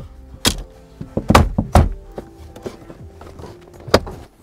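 Plastic dash speaker grille trim being pressed and knocked down by hand into its clips on a BMW dashboard: sharp thunks, three in the first two seconds and one more near the end.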